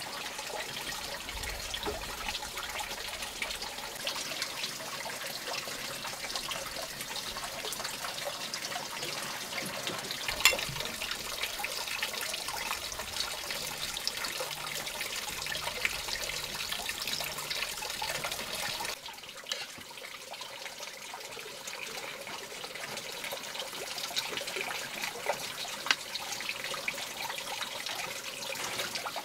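Running water trickling steadily, with a sharp click about ten seconds in and another near the end; the water gets a little quieter about two-thirds of the way through.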